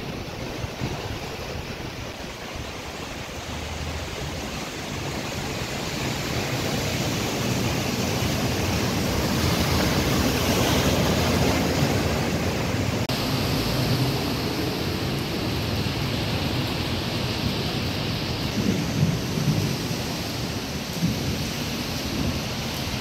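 Rain and the rushing spray of cars driving through a flooded street, a steady noise that swells to its loudest around the middle.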